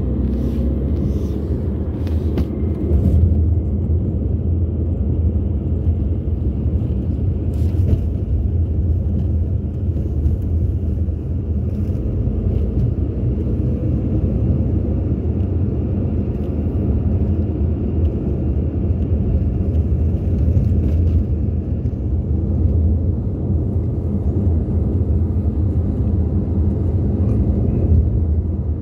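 Car driving on a paved road, heard from inside the cabin: a steady low rumble of engine and tyre noise, with a few faint clicks in the first few seconds.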